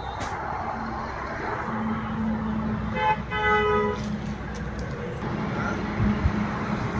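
Vehicle horn tooting, a short toot then a longer one about three seconds in, over the steady hum of an engine running.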